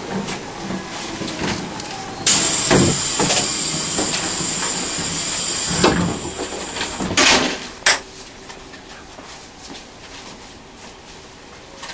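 Air-operated door on a Tobu 1800 series train car working at a standstill: a loud hiss of compressed air lasting about three and a half seconds with a couple of thumps, then a shorter hiss and a single clunk. After that comes a quieter steady hum of the stationary train.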